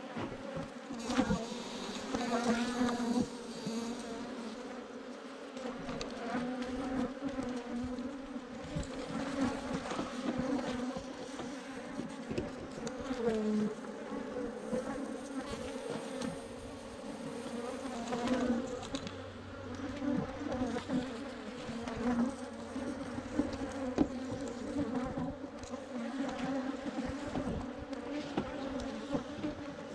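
A swarm of Africanized honey bees buzzing as a steady hum, with frequent short clicks and knocks over it.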